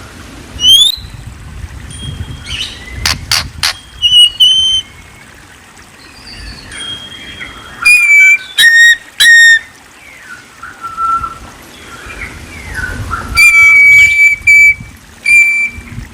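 A Copsychus songbird (murai) singing a varied phrase of loud clear whistles, quick rising glides and sharp clicks, with pauses between bursts.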